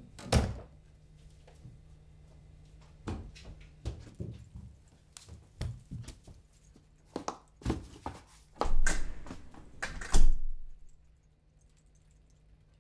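Knocks and thuds of doors being handled: a sharp knock at the start, a run of smaller knocks and clicks in the middle, and a heavier thump about nine to ten seconds in.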